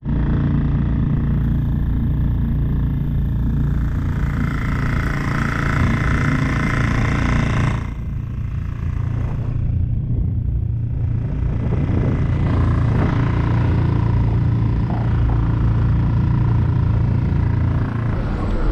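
A motor vehicle's engine running steadily with road rumble. The sound dips and changes about eight seconds in.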